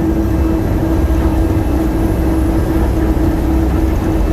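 DFW Skylink automated people-mover train running along its guideway, heard from inside the car: a steady low rumble with a constant hum from the drive.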